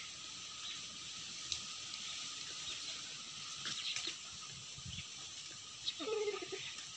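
A short chicken call about six seconds in, over a steady outdoor hiss with faint scattered bird chirps and a few light knocks.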